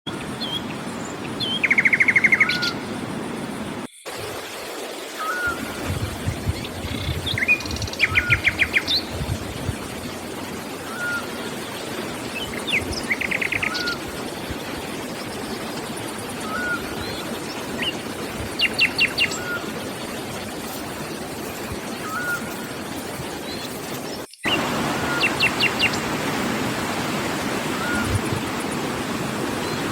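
Wild songbirds singing: a rapid trill of evenly spaced notes repeats every few seconds, with short rising chirps and other brief calls between, over a steady rushing background noise. The sound breaks off abruptly twice, at edits.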